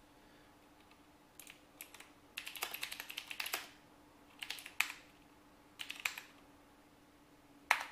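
Typing on a computer keyboard: a couple of single keystrokes, then a quick run of keys lasting about a second, then a few short bursts of keystrokes.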